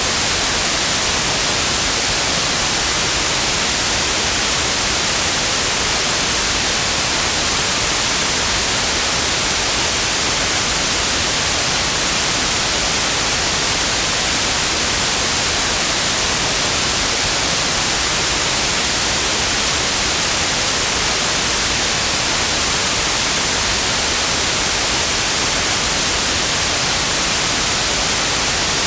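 Steady synthetic white noise: an even, unchanging hiss spread across all pitches, strongest in the high end.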